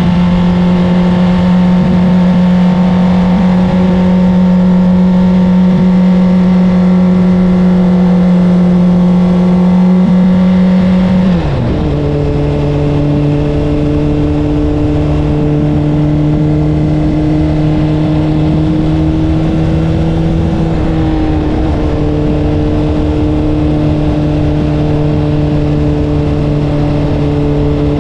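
Honda CBR600RR's inline-four engine running through an Akrapovic exhaust at a steady cruising pitch while riding. About eleven seconds in the engine note drops to a lower steady pitch and holds there.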